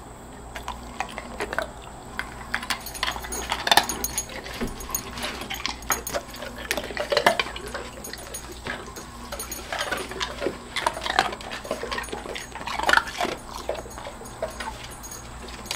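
A dog crunching ice cubes in its mouth: a run of irregular, sharp crunches and clicks.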